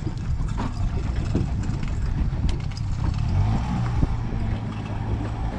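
Boat engine running steadily under way, a low rumble.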